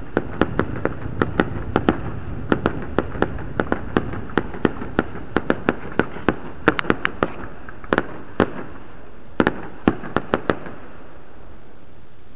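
Aerial fireworks display: shells bursting in an irregular run of sharp bangs and pops, two or three a second over a low rumble, stopping about two seconds before the end.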